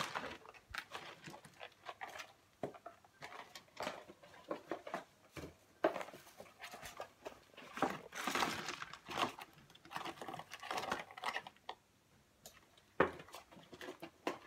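Cardboard takeout box handled and opened, then fried chicken wings tipped out of it onto a metal tray: scattered light knocks and rustling, with a longer rustling, sliding stretch about eight seconds in as the wings pour out.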